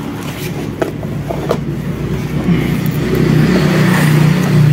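Steady low hum of a motor vehicle's engine running nearby, growing louder near the end, with a few light knocks from a cardboard box being handled about a second in.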